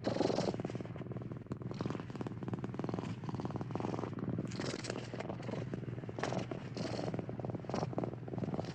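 An animal's continuous rumbling purr, with louder surges now and then.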